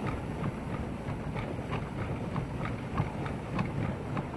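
Pedal boat under way, with rhythmic splashing and knocking about three times a second from the pedalled paddle wheel, over wind noise on the microphone.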